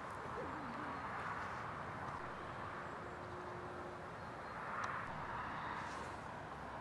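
Faint, steady outdoor background noise with no distinct source, swelling slightly about five seconds in, with a single faint click about five seconds in.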